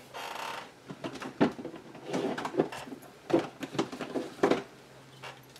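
Scattered light knocks and taps, with a brief rustle at the start, as craft tools and supplies are handled and moved about while a long-arm stapler is fetched.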